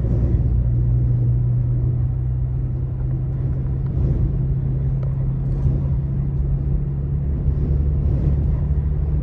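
An engine running with a steady low hum, the kind heard from an idling vehicle, under light wind noise.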